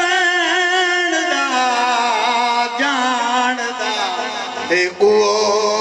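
A male zakir sings a Punjabi majlis recitation in long, wavering held notes, amplified through a microphone. His pitch falls about a second in; near the end there is a short break and a new held note begins.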